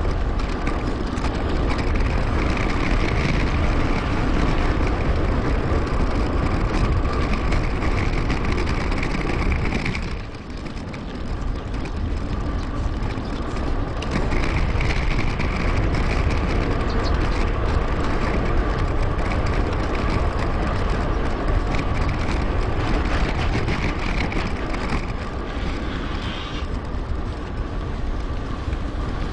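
Wind rushing over an action camera's microphone while a mountain bike rolls along, sped up 2.5 times. The noise eases briefly about ten seconds in.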